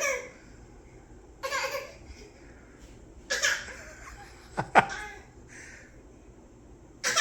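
A little girl making short, put-on coughs that come out like giggles, about five of them a second or two apart, the loudest one in the middle ending in a sharp falling squeal: forced coughs with no real cough behind them.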